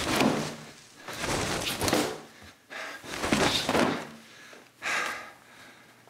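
A man's wordless angry grunts and shouts, with thuds and swishes of clothing as he flings laundry about, in four bursts about a second apart.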